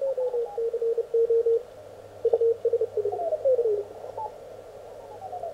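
Morse code (CW) signals from an Elecraft K1 transceiver's receiver, heard through its 400 Hz filter. Short keyed dots and dashes sit at one pitch, and between them tones slide down in pitch as the tuning knob sweeps across several stations.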